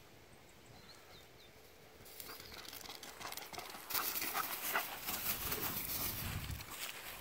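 Footsteps of a walker and golden retrievers on a concrete farm road: an irregular patter of steps and rustle that starts about two seconds in and grows louder about four seconds in, with a low rumble near the end. A small bird chirps faintly about a second in.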